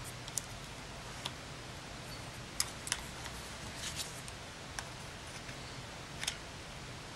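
Scattered small plastic clicks and taps as a partly disassembled Canon PowerShot SX130 IS compact camera is handled and turned over in the hands, over a steady background hiss.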